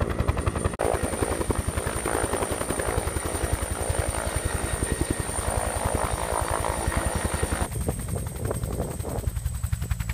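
Turbine helicopter landing on snow: the main rotor blades beat in a fast, even pulse under a high, steady turbine whine that drops slightly in pitch near the end.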